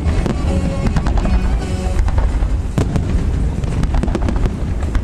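Fireworks going off in a rapid series of sharp bangs and crackles over a constant low rumble, with music also playing.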